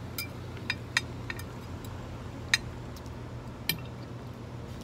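Metal cutlery clinking against plates and a glass at a meal: about half a dozen short, sharp clinks, spread unevenly, the loudest about halfway through, over a steady low background hum.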